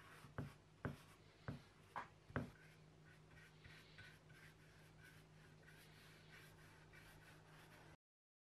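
Five sharp knocks in the first two and a half seconds, then a varnish brush scratching back and forth over rough scrap-wood boards in quick repeated strokes, with a low steady hum underneath.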